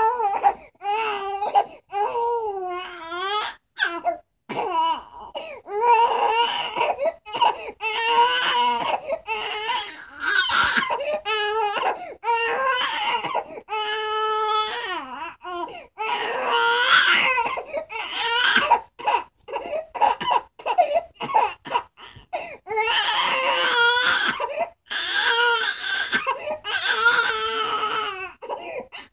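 Young baby crying in repeated wails, one after another with brief catches of breath between them, and one longer steady wail about halfway through.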